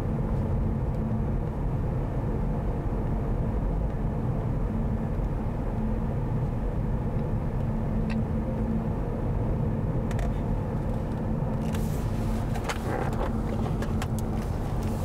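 Steady road and engine rumble from inside a moving car's cabin, with a low steady hum. A few light clicks and knocks come in the last few seconds.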